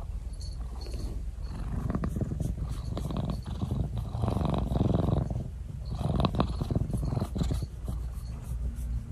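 Domestic tabby cat purring right against the microphone: a deep, continuous rumble that swells and eases with each breath, every second or two.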